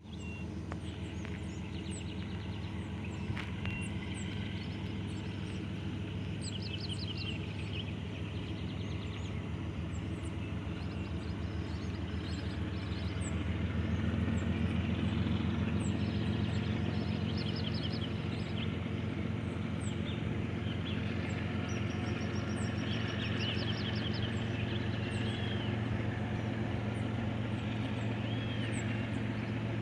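Diesel engines of a pair of GE freight locomotives, an ES44ACi and an AC44i, running steadily and growing louder about 13 seconds in, with birds chirping throughout.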